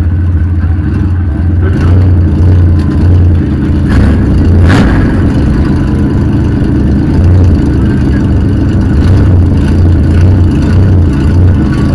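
Demolition derby van's engine idling loudly, heard from inside the cab, its low drone swelling and dipping, with a brief sharp click just under five seconds in.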